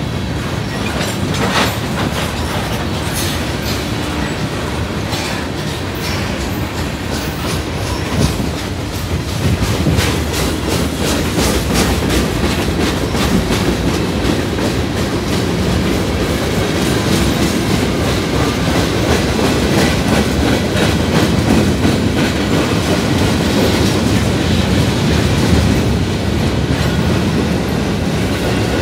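Freight train of covered hopper and open hopper cars rolling past close by: a steady rumble of steel wheels on rail, with rapid clickety-clack over the rail joints, the clicks densest in the first part and the rumble building slightly toward the end.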